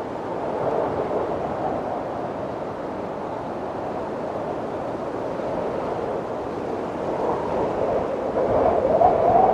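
Wind blowing steadily, with a wavering, whistle-like tone riding on the rush and a gust swelling louder near the end.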